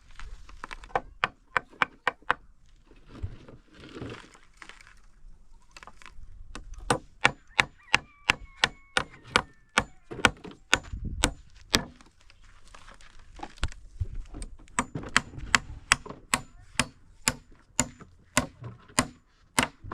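Hammering on wood: runs of quick, sharp strikes, about two or three a second, broken by short pauses.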